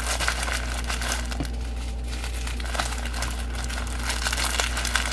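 Small plastic bags of diamond-painting drills crinkling as they are handled and sorted, a dense run of light crackles throughout.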